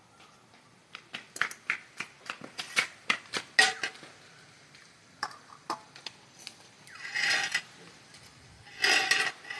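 Metal dishes and a serving spoon clinking as food is served out onto plates: a quick run of clinks and taps, a few more after a pause, then two longer scrapes near the end.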